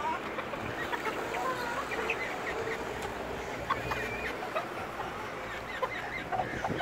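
Aseel chickens clucking, many short calls from several birds overlapping.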